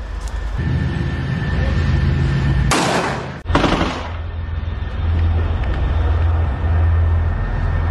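Two short bursts of gunfire about three seconds in, over a loud, steady low rumble.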